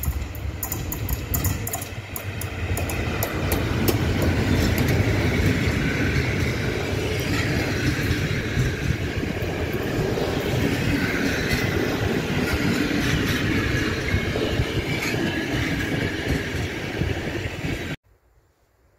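Passenger train hauled by an electric locomotive passing close by, its PKP Intercity coaches rolling over the track. A rapid run of sharp clicks comes first, then a steady rolling rumble and clatter that cuts off suddenly near the end.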